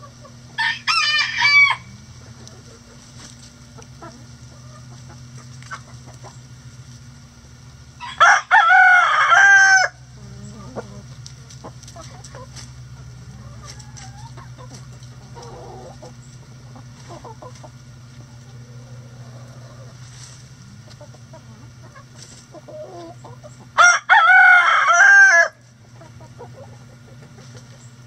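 Rooster crowing three times: a short crow near the start, then full crows about eight seconds in and again about sixteen seconds later. Quieter hen clucking between the crows, over a steady low hum.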